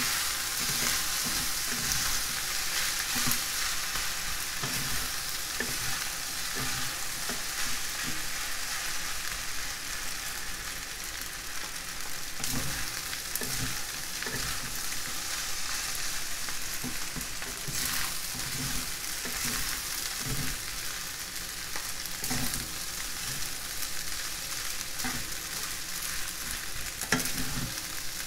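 Rice and green vegetables sizzling in a frying pan over a gas flame, stirred and turned with two wooden utensils that scrape and knock against the pan at irregular moments.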